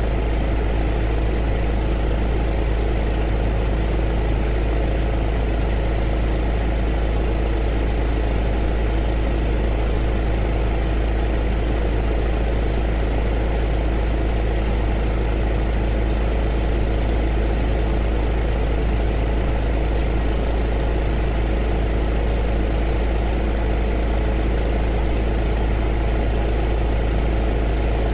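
Heater running steadily: an even hiss of blown air over a low rumble and a few steady hum tones, unchanging throughout.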